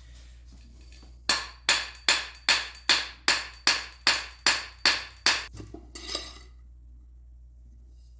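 A rapid, even series of about a dozen sharp knocks, roughly two and a half a second, as the butt of a wooden screwdriver handle is whacked to drive the handle further down onto the shaft. The knocks stop a few seconds in, with a couple of softer ones at the end.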